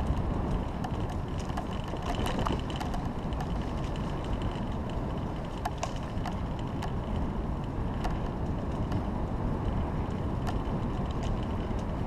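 Steady rumbling noise of a bicycle rolling along an asphalt path, tyres and passing air together, with scattered light clicks and rattles from the bike.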